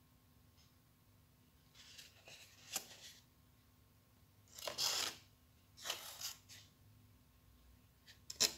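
Folded paper stars being picked up and handled: papery rustling in three short bursts, about two, five and six seconds in, and a sharp tap near the end.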